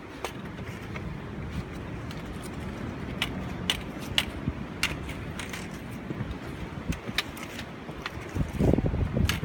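Wind buffeting the microphone as a steady low rumble, with a stronger gust near the end. Scattered sharp clicks and ticks sound over it.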